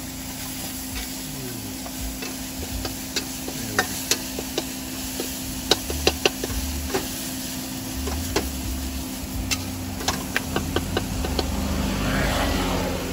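Metal ladle and spatula scraping and tapping against a wok as minced pork for pad kaphrao is stir-fried until its liquid has cooked off. The taps are sharp and irregular, some in quick clusters, over a faint sizzle and a steady low hum.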